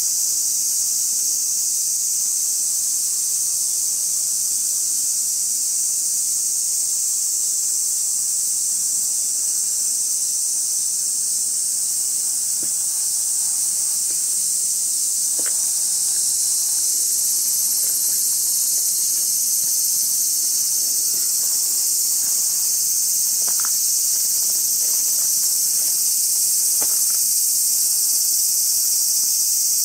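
Dense, steady, high-pitched chorus of summer insects, with a few faint short chirps in the second half.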